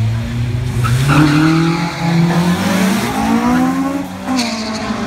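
Honda Civic EG6 and Toyota Starlet drag cars launching off the start line: the engines are held at steady launch revs, then about a second in they pull away with rising pitch. There is a gear change about two seconds in, and a second one near the end with a sharp pop.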